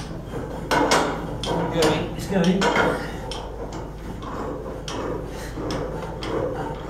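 Irregular metallic clanks and knocks as a long steel boiler stay tube is worked by hand through the tube holes of a Cochran boiler, several in quick succession early on and a few more about five seconds in.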